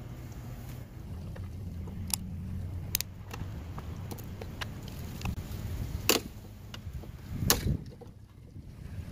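Screwdriver prying at the plastic light lens in a Ford Super Duty tow mirror: a series of sharp clicks and taps against the housing, the two loudest in the second half, over a steady low rumble of wind on the microphone.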